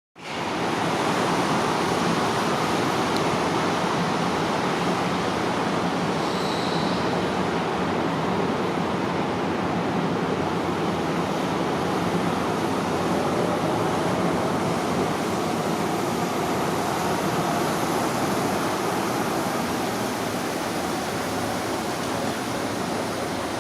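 Learjet 35A's twin Garrett TFE731 turbofan engines at takeoff power: a steady jet roar that eases slightly near the end.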